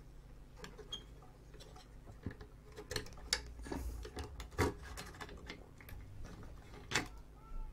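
Irregular light clicks and knocks of a circuit board being worked loose and lifted out of the postal scale's metal chassis, with a few louder knocks about halfway through and again near the end.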